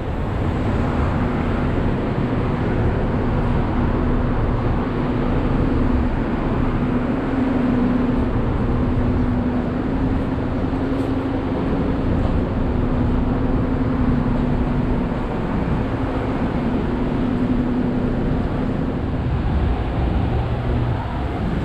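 Street traffic noise with a city bus running close by: a steady low engine hum over the traffic that fades out near the end.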